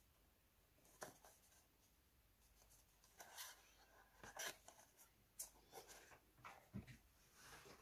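Near silence with faint, scattered rustles and light taps of cardstock pieces being handled.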